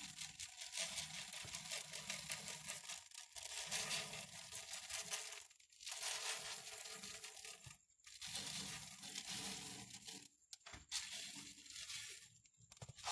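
Platinum black aquarium soil granules poured from a plastic cup into a tank, a dry gritty rustle coming in several pours with brief pauses between them.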